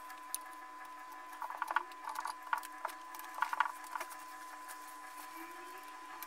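Light clicking and rustling of hands handling a wooden subwoofer box, in a few short clusters from about one and a half to four seconds in, over a steady faint whine.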